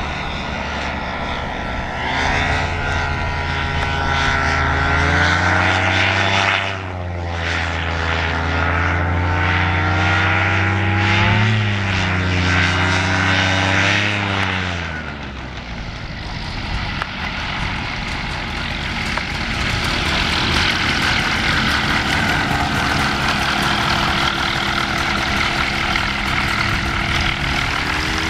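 Simonini Victor 100 hp two-stroke engine and pusher propeller of an amphibious flex-wing trike flying past, a steady engine note that drops in pitch twice, about six and fourteen seconds in. For the second half the sound turns rougher and noisier with no clear note, and near the end the engine revs up.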